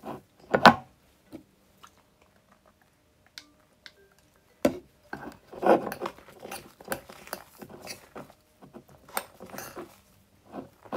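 Fluffy slime made from glue and shaving cream being stirred, folded and pulled up with a spoon in a ceramic bowl, giving bunches of short sticky squelches and crackles. There is a quiet stretch of a few seconds near the start. The slime is nearly set and pulling away from the sides of the bowl.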